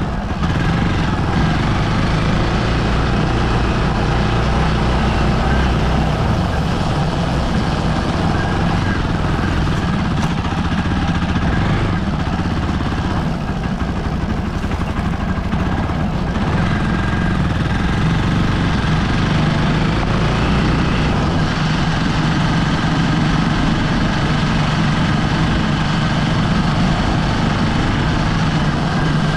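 Hero Xpulse 200 4V motorcycle's single-cylinder engine running at a steady pace while the bike rides over a dirt trail, heard from close beside the rear wheel and chain.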